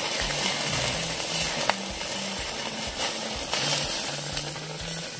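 Turban shells grilling over a charcoal shichirin, the juices inside the shells sizzling and bubbling as a steady hiss, with small scattered crackles.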